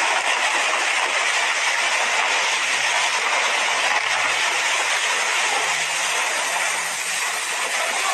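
Landslide of wet mud and debris pouring down a hillside, making a steady, hissing rush without breaks.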